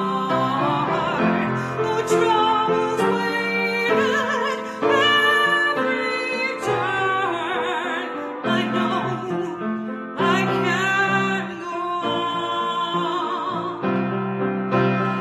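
A hymn sung by a single voice with a wavering vibrato, over piano accompaniment, the voice moving from one held note to the next.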